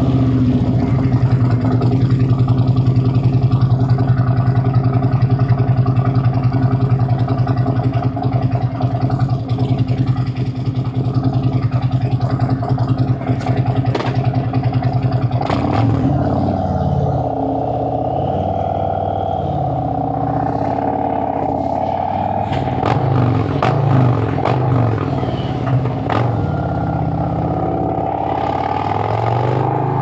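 2017 Harley-Davidson Road Glide Special's Milwaukee-Eight 107 V-twin, freshly started, idling with a steady pulsing beat. About halfway through it revs and pulls away, its pitch rising and falling again and again as the bike accelerates through the gears.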